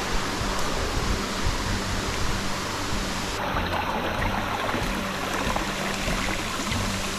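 Steady rush of a rainforest river flowing over rocks below a waterfall.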